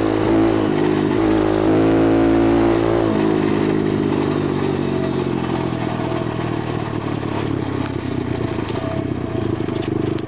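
140cc pit bike's single-cylinder four-stroke engine running under throttle for about three seconds, then easing off to a lower, steadier note as the bike rides over rough ploughed ground, with wind buffeting the microphone. Rattles and knocks from the bumps come in near the end.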